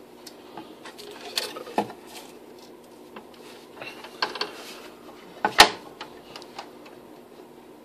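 Scroll saw running with a steady hum, with several knocks and clatters of wooden pieces being handled; the sharpest knock comes about five and a half seconds in.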